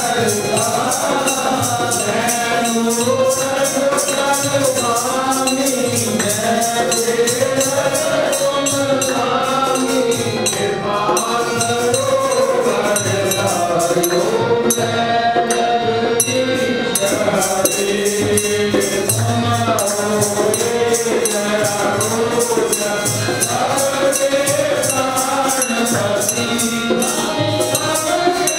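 Devotional group singing of a bhajan, with voices rising and falling in melody over a steady, fast jingling beat from hand percussion.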